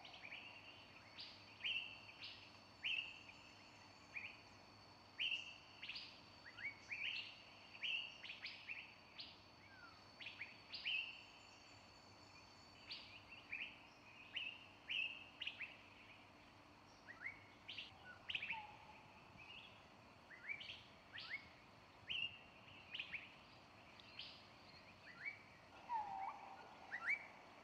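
Small birds chirping: short, sharp calls repeated one or two a second, each a quick downward stroke settling on a brief higher note, over a faint steady background hiss. Near the end comes one lower call.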